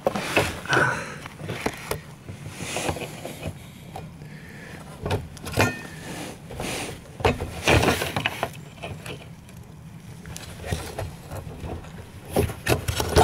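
Irregular clicks, scrapes and knocks of fingers working a plastic quick-connect fuel line coupling loose from a VW Golf 5 fuel pump flange, with louder knocks about eight seconds in and near the end.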